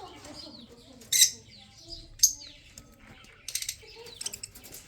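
Budgerigars chirping and chattering: two loud sharp chirps about a second and two seconds in, with short falling calls between, then a quick run of clicky chatter near the end.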